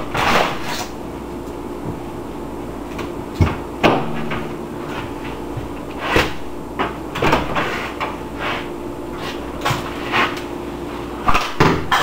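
Microwave oven running with a steady hum, broken by scattered sharp clicks and knocks. About six seconds in a wooden rod taps the control panel, and near the end the door latch clicks twice as the door opens.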